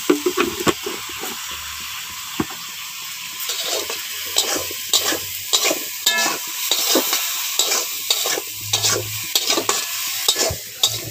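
Metal spatula stirring and scraping potatoes and tomatoes frying in a metal kadai, over a steady sizzle. The strokes start about three seconds in and come about twice a second.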